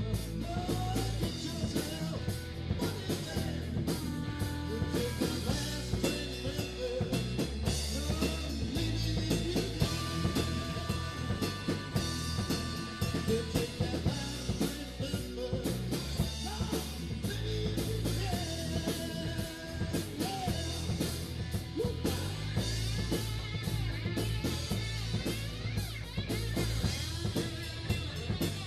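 Live rock band playing: drum kit, bass and guitars, with a lead voice at the microphone.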